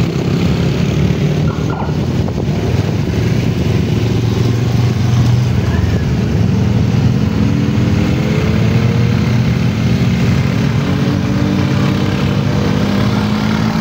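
Motorcycle engines running close by, with the engine note climbing steadily through the second half as vehicles accelerate.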